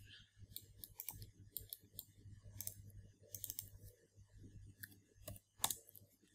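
Faint, scattered clicks of a computer mouse and keyboard, a dozen or so sharp ticks with a quick run of several just past the middle, over a low steady hum.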